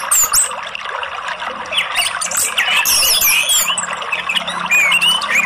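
Orange-headed thrush (anis merah) calls, many quick short curving chirps and twitters in bunches, over a steady rush of running water.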